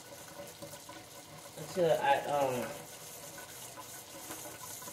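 A short wordless vocal sound, a hum that falls in pitch, about two seconds in, over a faint steady hiss.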